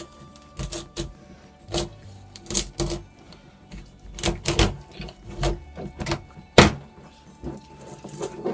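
A kitchen knife cracking and knocking through the bone of a Japanese sea bass head on a plastic cutting board, splitting the head in half: a dozen or so irregular sharp cracks and knocks, the loudest a little past halfway. Background music plays under it.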